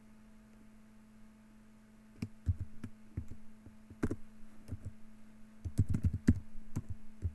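Keystrokes on a computer keyboard: quiet for about two seconds, then irregular bursts of key clicks as a command is typed, over a faint steady hum.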